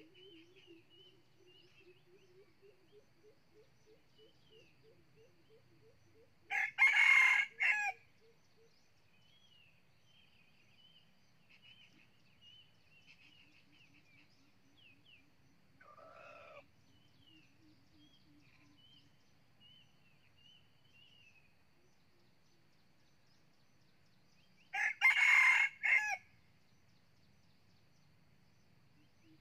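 Red junglefowl rooster crowing twice, about eighteen seconds apart; each crow is short and broken into a few clipped syllables. A fainter short call comes in between, with small birds chirping faintly behind.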